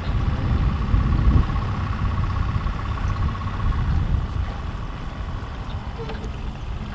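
A fishing boat's motor running steadily: a low uneven rumble, with a thin high whine over it that fades out about four seconds in.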